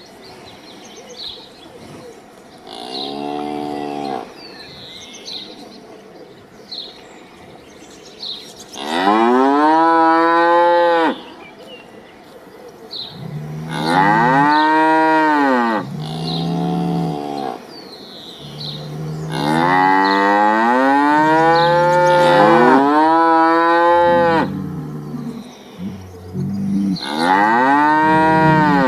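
Cattle mooing: about six long, drawn-out moos, each rising then falling in pitch, with deeper low moos underneath in the second half. Faint bird chirps can be heard between the calls.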